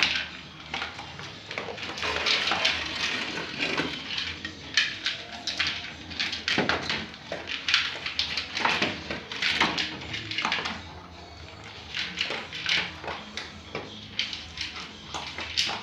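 Two Dalmatians eating from metal bowls: irregular chewing and the clink and scrape of the bowls as they eat.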